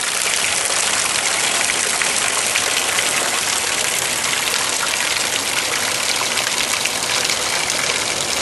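Small trailside waterfall spilling down a rock face: a steady rush of falling, splashing water.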